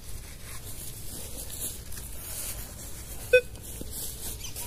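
Two short, sharp beeps from a metal detector checking a freshly dug hole for further targets, about a second and a half apart, over a faint background hiss.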